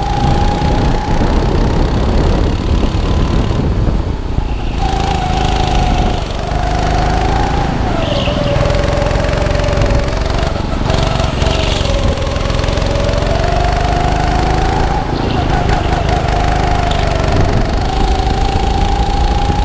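Indoor go-kart engine heard from onboard, running under load through a lap: its note rises on the straights and drops several times as the kart slows for corners, over a steady rumble of tyres and chassis.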